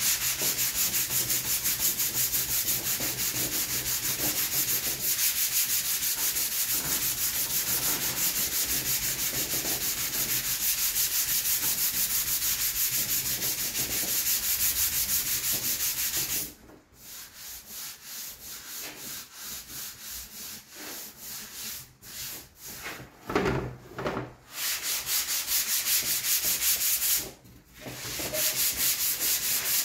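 Sandpaper on a hand sanding block rubbed back and forth over body filler on a plastic Yamaha TZR250 fairing panel, in quick, even strokes: the filler being knocked back lightly by hand. The strokes stop briefly about halfway through, go on quieter and more broken, and pause again near the end.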